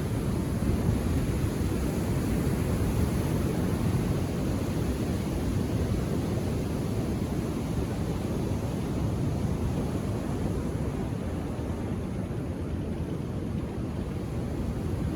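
Ocean surf breaking on the shore, a steady low rumble that eases slightly and then swells again near the end.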